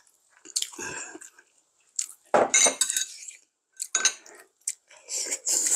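Metal tongs and chopsticks clinking and scraping against a stainless-steel hot pot and bowls, in scattered short bursts, as food is served and eaten.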